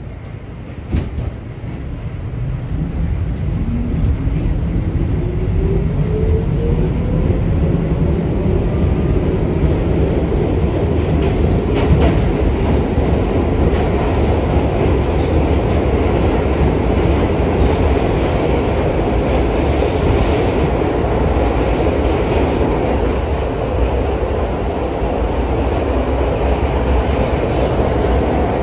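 Inside an R68 subway car as the train accelerates: the traction motors' whine rises steadily in pitch over the first several seconds as the noise builds. It then settles into a steady rumble of wheels on track, with occasional sharp clicks.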